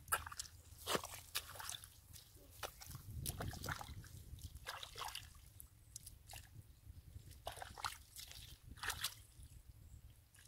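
Hands and bare feet squelching in soft, wet paddy-field mud: irregular wet smacks and sloshes with drips of muddy water.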